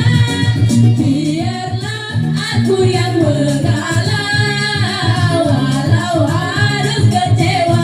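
Live orkes tunggal music: a singer's melody over a keyboard backing with a steady, repeating bass beat.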